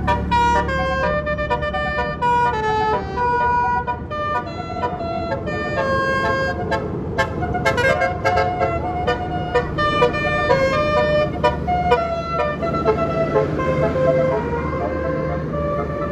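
Indonesian bus 'telolet basuri' melody horn playing a tune of quick stepped notes, shifting to lower, softer notes about twelve seconds in, over the steady low running of the bus engine.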